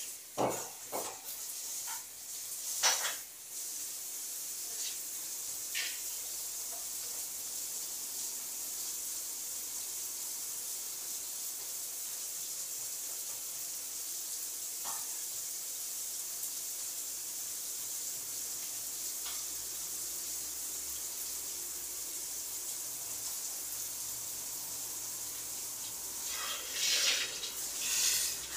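Shower water running in a steady, even hiss, with a few faint knocks and clicks.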